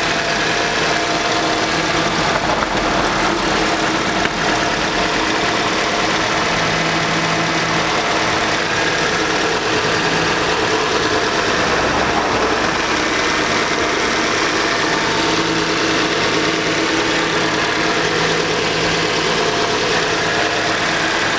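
Chevrolet Aveo's F14D4 1.4-litre Ecotec four-cylinder engine idling steadily after a cold start. The knocking in its running is put down by the owner to the cam phasers, at 167,000 km.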